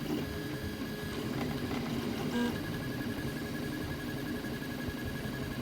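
Desktop 3D printer running mid-print: a steady mechanical hum of its motors, with a faint high pulsing whine coming in about halfway through as the print head moves.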